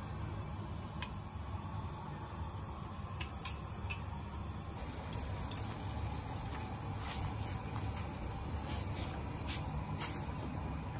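Water at a rolling boil in a stainless steel pot: a steady low bubbling rumble with scattered light pops and clicks.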